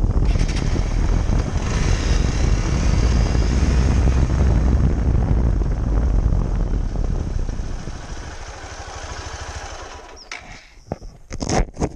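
Motorcycle riding on a wet road, heard from a camera mounted low by the front wheel: a steady low rumble of wind and road noise with tyre hiss. It dies down after about eight seconds, and a few sharp knocks follow near the end.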